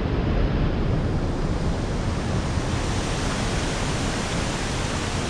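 Steady rushing noise of wind buffeting the microphone over running water, with a rough, gusty low rumble.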